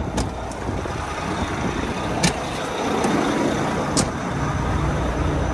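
Diesel tractor-trailer rolling slowly, its engine running under a low, steady rumble of road noise, with a few short sharp clicks.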